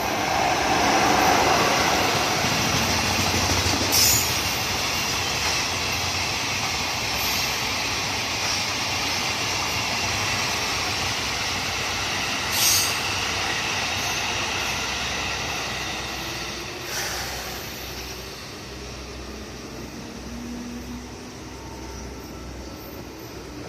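Freight train hauled by an EF66 100-series electric locomotive passing at speed, a long steady rolling rumble of limestone wagons on the rails, loudest about a second in. Three brief sharp wheel-and-rail sounds stand out, and the rumble eases off over the last several seconds as the train goes by.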